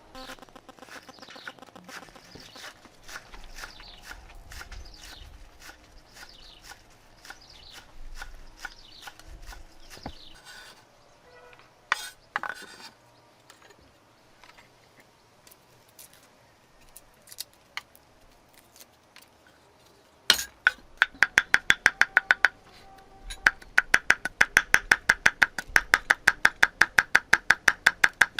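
Birds chirping with repeated high, falling calls, then a few scattered knocks. From about twenty seconds in, a fast, even run of sharp knocks, about five or six a second, like a knife chopping quickly on a cutting board.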